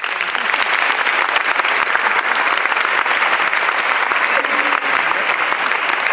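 An audience applauding, a dense patter of many hands clapping that starts abruptly and keeps up steadily.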